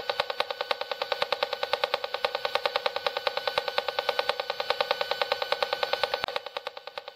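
Handheld RF radiation meter's speaker turning a WiFi signal into a rapid buzzing pulse, about ten pulses a second, the beacon rhythm of a WiFi access point. The pulsing drops in level about six seconds in.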